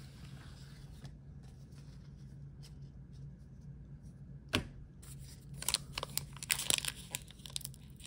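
Foil Pokémon booster pack wrapper being handled and torn open: one sharp click about halfway through, then a run of crackling and crinkling from about two-thirds in, over a faint steady low hum.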